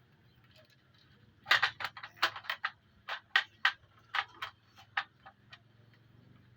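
A quick, irregular run of about fifteen sharp clicks and taps, starting about a second and a half in and lasting about four seconds, from hard parts of a new monitor being handled.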